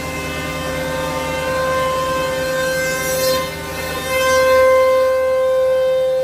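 CNC woodworking machining centre running, its spindle and cutter giving a steady whine as it mills a timber beam. The whine dips briefly about three and a half seconds in, then swells back louder.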